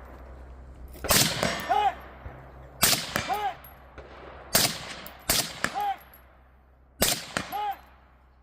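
Five suppressed rifle shots from a SCAR 16 short-barrelled rifle in 5.56 mm, fired about one to two seconds apart, with two close together in the middle. Each shot is followed under a second later by the ring of a hit on a steel target.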